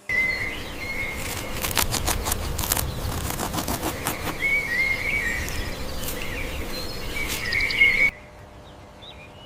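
Outdoor ambience of birds chirping in short warbling calls over a steady hiss, with a few sharp clicks; it cuts off suddenly about eight seconds in.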